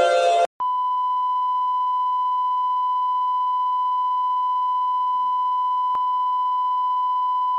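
Music cuts off abruptly about half a second in. After a brief gap a steady single-pitch 1,000-hertz test tone begins, the off-air sign-off tone of a broadcast closing down, with one faint click about six seconds in.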